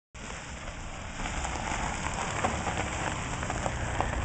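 Steady hiss of flowing river water with scattered faint ticks, over a low rumble; it grows a little louder about a second in.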